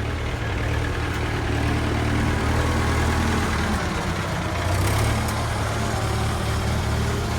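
Farm tractor engine running steadily at a low idle, with a short hiss about five seconds in.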